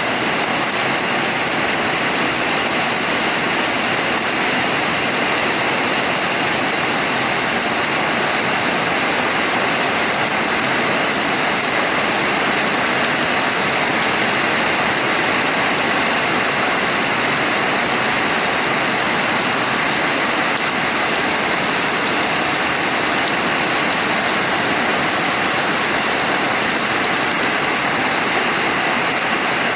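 Steady, dense rain hiss with no single drops standing out.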